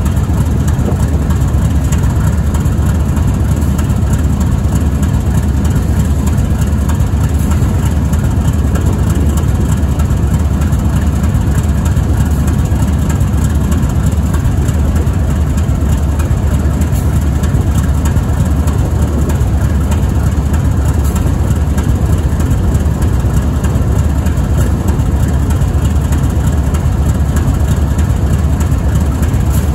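GE ES44AC locomotive's GEVO-12 V12 four-stroke diesel engine idling steadily, a deep, even sound.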